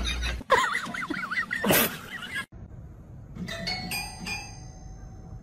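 Wavering high-pitched sounds, with a short loud noisy burst a little under two seconds in. After a sudden cut, a cat paws the keys of a small toy piano: several notes struck in quick succession about three and a half seconds in, each ringing on.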